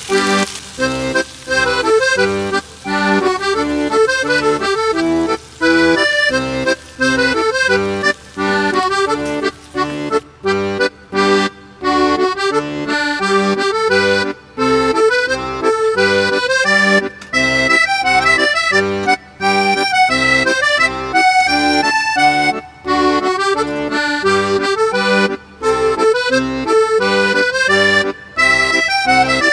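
Instrumental background music with a quick, regular rhythm of short notes.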